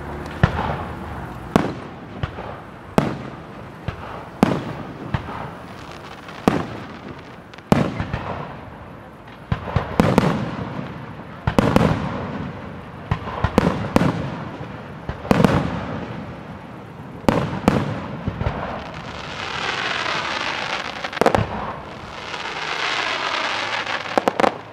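Professional aerial firework shells bursting one after another, each a sharp bang with an echoing tail, about every one to two seconds. Near the end come two longer spells of dense crackling, at about 20 and 23 seconds.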